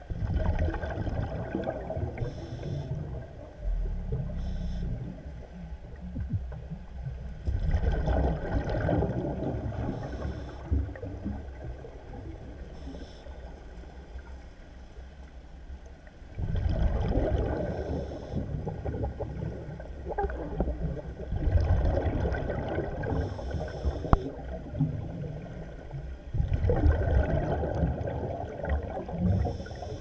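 Scuba diver breathing through a regulator underwater: a bubbling rush of exhaled bubbles every few seconds, each lasting a couple of seconds, with a short hiss from the regulator on each in-breath between them.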